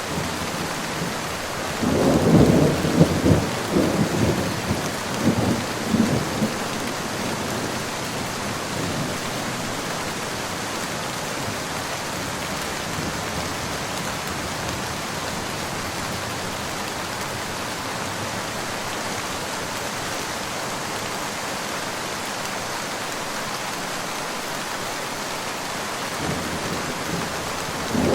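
Steady heavy rain falling, with a clap of thunder rumbling for about five seconds a couple of seconds in, and another rumble of thunder starting near the end.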